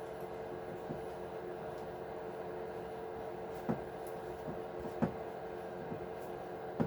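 A few light clicks and taps of small plastic and metal parts as the steering servo is worked off an RC truck chassis, three of them sharper, in the middle and at the end, over a steady background hum.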